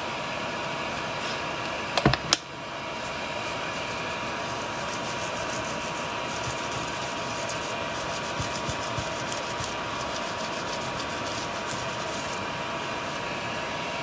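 Steady fan whir with a thin steady whine, under the faint scrubbing of a paper towel wiping flux off a circuit board with rubbing alcohol. A couple of sharp clicks come about two seconds in.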